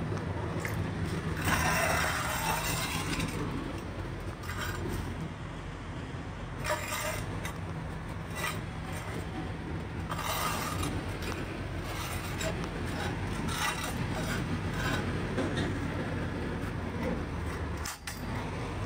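Truck engine running steadily with a low drone, with several short bursts of hiss or rattle over it.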